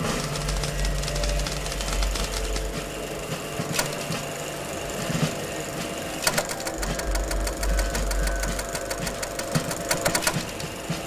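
Rapid mechanical clatter of a film projector running, with a low rumble beneath. The clicking is densest from about six to ten seconds in.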